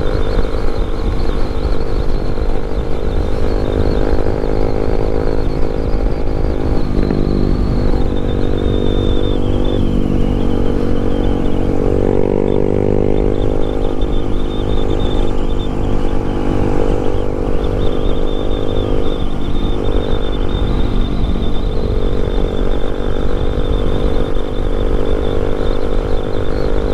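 Yamaha MT-07's parallel-twin engine running under way on its stock exhaust. The engine note dips and picks back up several times through the gear changes, with wind rumble on the microphone.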